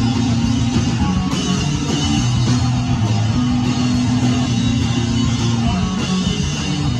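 Live rock band playing loud, guitar-heavy, with long held low chords.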